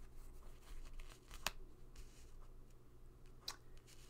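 Tarot cards handled and laid down on a cloth-covered table: soft rustles and light taps, with a sharper click about a second and a half in and another near three and a half seconds, over a faint steady hum.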